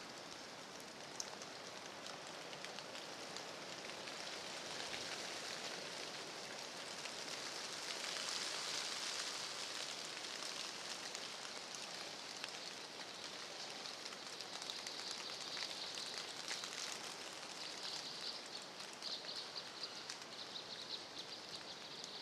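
Light rain pattering steadily on fallen leaves, a fine hiss of many tiny ticks that grows a little louder around the middle.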